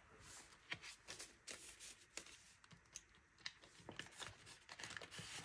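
Faint rustling of paper banknotes being handled and counted, with scattered soft clicks and crinkles from the plastic cash pouch and binder.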